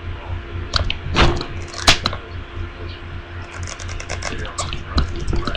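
Plastic packaging being pulled and peeled off a product box: irregular crackles and crinkles, a few sharp ones in the first couple of seconds and then a quick run of small clicks.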